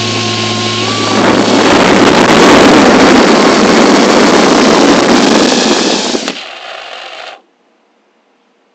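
Custom 2.5-inch 3S cinewhoop drone's ducted propellers spinning close to the microphone, a loud even rushing hiss. It cuts off about six seconds in, leaves a quieter hiss, and stops about a second later.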